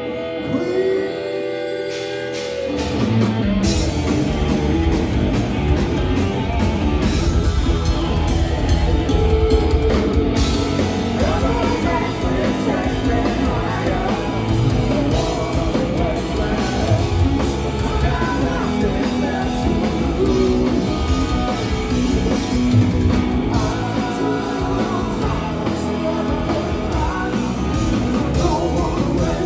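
Live rock band playing: a sung lead vocal over electric guitar, bass guitar and drum kit, heard from the audience. The opening is quieter with a held note, and the full band comes in about two to three seconds in.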